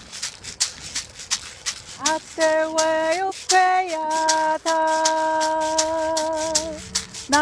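A hand rattle is shaken in a steady beat, about three shakes a second. From about two seconds in, a woman sings a chant over it in long held notes.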